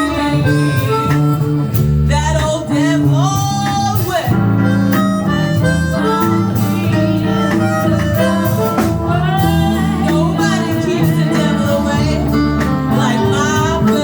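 Live band music: a lead line bending and sliding between notes over a steady accompaniment.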